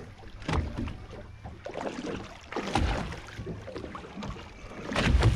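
Sounds on a fishing boat's deck at sea: a steady low hum runs under irregular noisy surges and knocks. The loudest surge comes about five seconds in.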